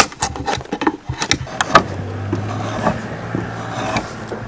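Draw knife pared along a green-wood billet clamped in a shave horse, a short scrape with each pull. From about halfway through a steady low hum sits underneath.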